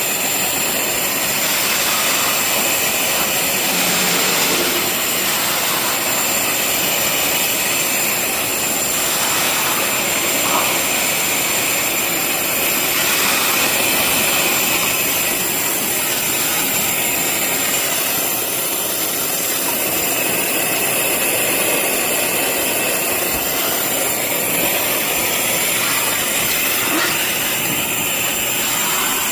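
Industrial coolant sludge cleaner (SD400 TC80A wet vacuum) running steadily with a high whine, sucking water off the floor through a wide floor nozzle.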